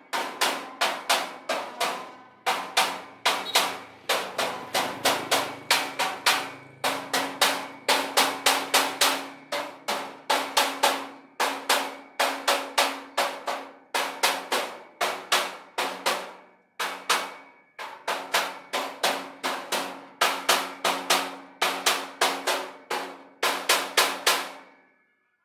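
Hammer blows on steel in quick runs of four to six with short pauses between runs, the metal ringing after each blow.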